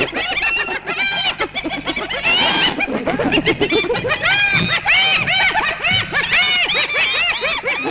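A pack of spotted hyenas cackling, screeching and screaming together in a dense chorus of rapid, overlapping rising-and-falling calls, as they crowd lions off a kill.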